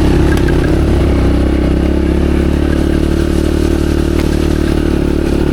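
Motorcycle engine running steadily at low, even revs while ridden slowly. A few light clicks and rattles can be heard over it.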